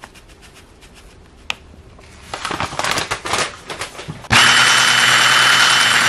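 Light scraping and clattering, then about four seconds in an electric immersion blender with a whisk attachment starts up and runs at a steady speed, whirring as it whisks cake batter.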